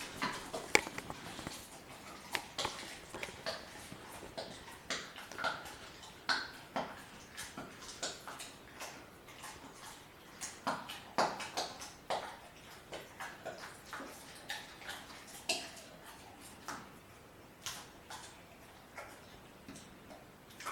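German Shepherd puppy chewing a raw chicken quarter, the bone crunching in many irregular sharp cracks, thinning out towards the end.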